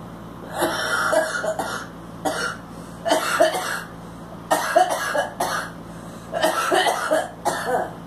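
A woman's smoker's coughing fit: harsh, raspy coughs and throat clearing coming in about six bouts, each lasting up to about a second, with short pauses between them.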